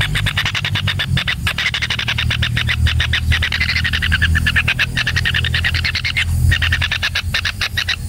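Kingfisher nestlings giving a continuous fast, rattling chatter of rapid clicks, their begging call, broken by brief pauses about a second and a half in and again near the end. A steady low rumble runs underneath.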